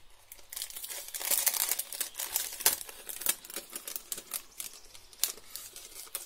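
Thin plastic packet crinkling as it is handled and opened, densest in the first half, then thinning to a few scattered light clicks and rustles.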